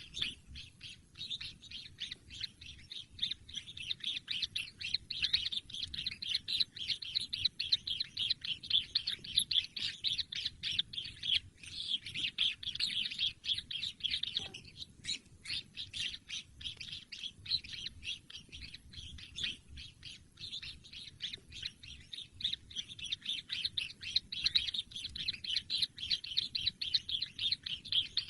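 Kingfisher chicks chirping in a fast, continuous stream of short high calls. The calls swell louder several times and pause briefly about halfway through.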